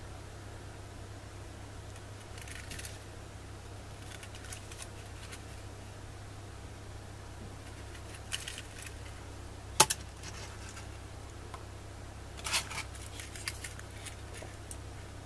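Small plastic N-gauge 205 series model train cars being handled: scattered light clicks and taps as they are picked up, turned and swapped, with one sharp click about ten seconds in, over a steady low hum.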